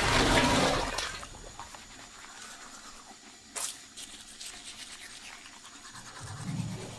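Cartoon sound effects: a creature's roar fading out in the first second, then faint scratchy noise with one sharp snap about three and a half seconds in, and a low rumble swelling near the end.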